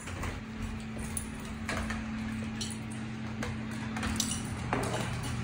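Scattered light clicks and knocks of a dog's claws and footfalls on wooden floors and steps, over a steady low hum.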